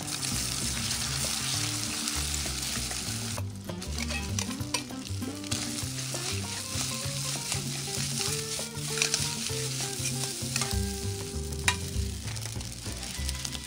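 Egg and rice sizzling in oil in a wok, stirred and scraped with a metal ladle, with a few sharp clicks of the ladle on the pan. Background music plays underneath.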